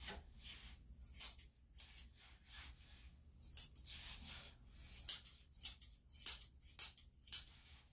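Grooming scissors snipping the long hair on a Lhasa Apso's face around the eyes. The snips are short and crisp, about one or two a second at uneven spacing, and grow more frequent in the second half.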